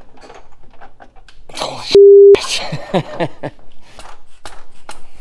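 A censor bleep: one loud, steady beep lasting about a third of a second, about two seconds in, with all other sound cut out while it plays, masking a swear word while stuck stud nuts are being forced. Around it are strained voice sounds and sharp metallic clicks and knocks from hand tools.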